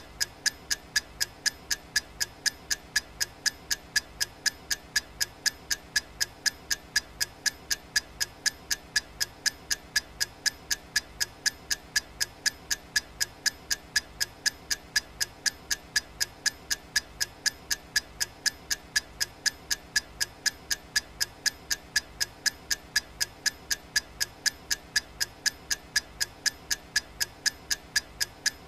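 Clock ticking sound effect: identical sharp ticks repeating at a steady, quick, even rate.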